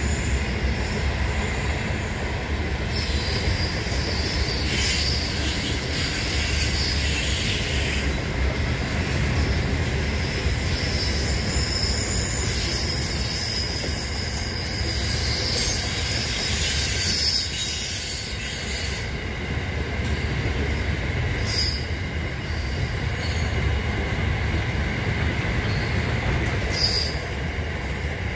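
A passing train: a steady low rumble with high-pitched wheel squeal from the rails that comes and goes. There are a few brief sharp clanks along the way.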